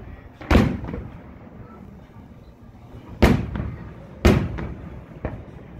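Aerial firework shells bursting: three loud booms, about half a second in, just after three seconds and about a second later, then a weaker one near the end, each trailing off.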